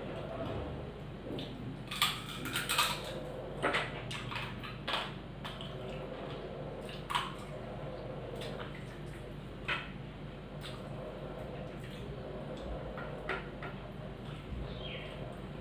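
Sounds of eating with the hands: fingers squishing curd-soaked water rice (dahi pakhala) on the plates, with wet mouth smacks and about a dozen scattered sharp clicks, over a steady low hum.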